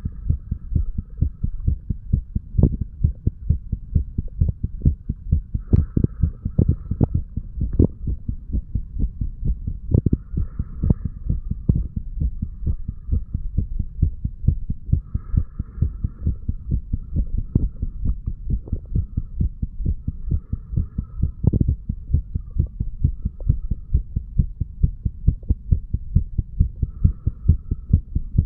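Heartbeat of a 35-year-old man, recorded at the chest after heavy drinking: a steady, regular run of low thumps over a low hum.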